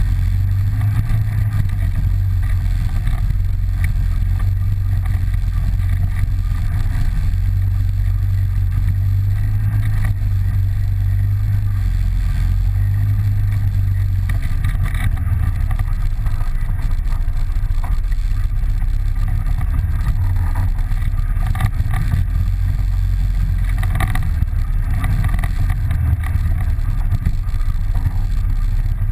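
ATV engine running steadily at low trail speed, a deep, even hum, with a few brief knocks and rattles as the machine rides over rough ground.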